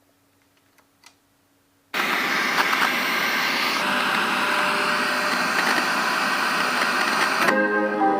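Two faint clicks, then the Victor PC-W330 boombox's radio bursting into loud static hiss about two seconds in. Near the end the hiss gives way to music as a station comes in.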